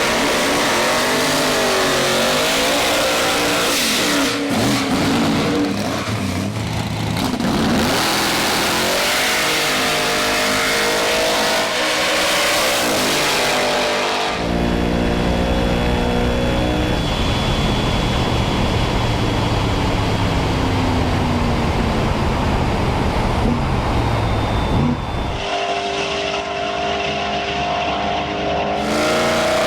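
Procharged 540-cubic-inch V8 of a Chevy Nova drag car, revving and accelerating hard. The engine note climbs and falls repeatedly across several cut-together clips, which change abruptly about halfway through and again near the end.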